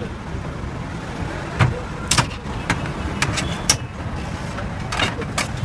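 Steady low rumble of street traffic, with several sharp clicks and knocks scattered through it.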